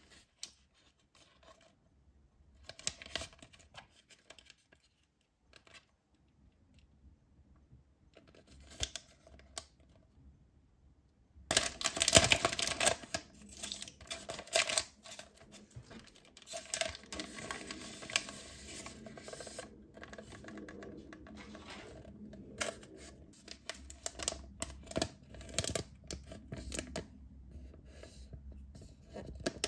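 Plastic wrapper of a Kyara Paki chocolate packet crinkling as it is handled and turned over in the hands. A few faint rustles at first, then near-continuous crinkling from a little over a third of the way in, loudest just after it starts.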